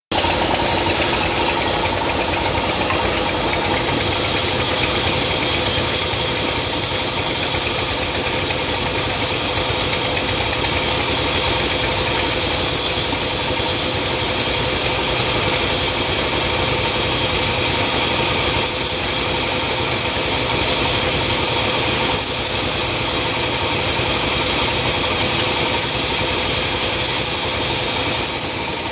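Sawmill saw machinery running steadily: a constant loud mechanical hum with a steady high whine over it.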